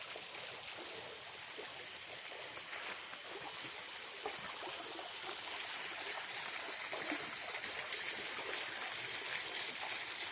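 Steady rush of flowing water from a jungle stream and waterfall, growing a little louder toward the end.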